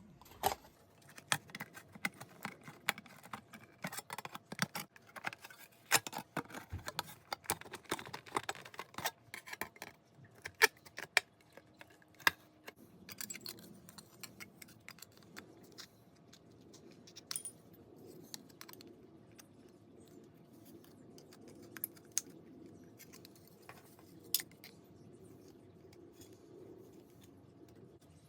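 Tin snips cutting sheet metal from a license plate: a quick run of sharp metallic snips and clicks that thins out after about twelve seconds to only a few scattered clicks.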